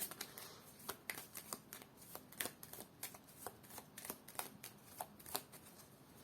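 Tarot cards being shuffled by hand: a quiet run of soft, irregular card flicks and snaps, a few a second.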